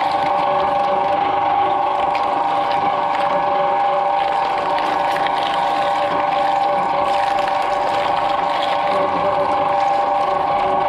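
Twin-shaft shredder running with a steady motor whine, its toothed cutter shafts chewing whole green papayas with scattered wet crunching.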